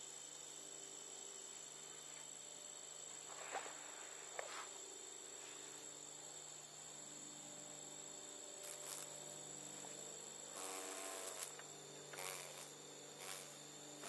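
Steady chorus of singing insects, heard as two continuous high-pitched trilling tones. Several short buzzy bursts break in, mostly in the second half.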